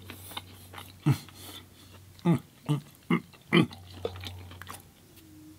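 Five short, low grunts, each dropping sharply in pitch: one about a second in, then four in quick succession, over faint clicks.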